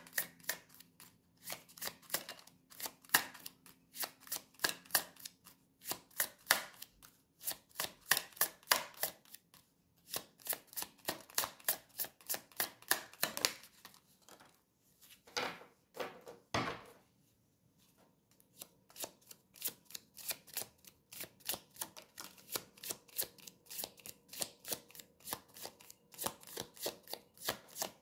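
A tarot deck being shuffled by hand: a rapid patter of card clicks, several a second, with a lull of a few seconds about halfway through before the shuffling picks up again.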